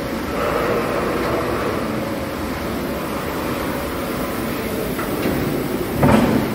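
Rotary beech veneer peeling line running: a steady mechanical rumble with rattle, and a louder clunk about six seconds in.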